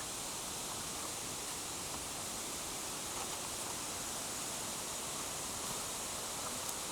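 Steady rush of flowing water from a jungle waterfall and stream, even and unbroken, with a few faint ticks.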